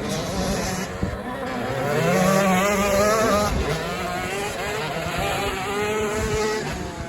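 Several motocross dirt bike engines revving on the track, the pitch climbing and swelling to the loudest point about two seconds in, then holding at a lower level with the throttle wavering.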